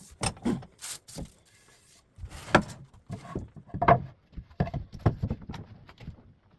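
Irregular knocks and clunks of boards and tools being picked up and set down on a workbench, about a dozen sharp hits with a short pause about two seconds in.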